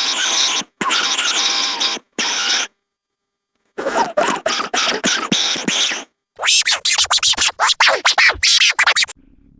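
A string of short, edited sound-effect clips made for a buffalo sculpin (Enophrys bison), each starting and stopping abruptly: hissy, scratchy bursts, a silence of about a second, then a fast stutter of short sounds that glide up and down in pitch.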